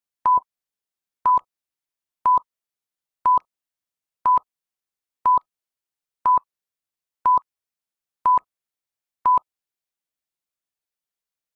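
Electronic timer beeps: ten short, identical single-pitch beeps, one every second, with silence between them, ticking off the seconds while a quiz question is up for answering.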